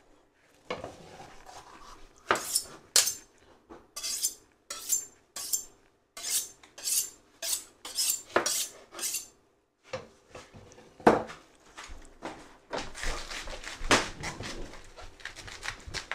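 Kitchen knives cutting bell peppers and cabbage on cutting boards. First comes a run of crisp cuts about two a second, then a rougher stretch of cutting with a few heavier knocks.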